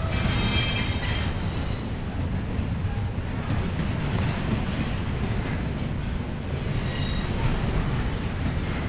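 Double-stack intermodal container cars of a Union Pacific freight train rolling past with a steady low rumble. Wheels squeal with a high ringing twice: during the first second and again about seven seconds in.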